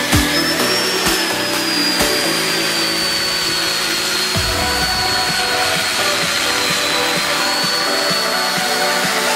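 A high-speed power tool running steadily with a high whine that sags slightly in pitch, over background electronic music; it cuts off abruptly at the end.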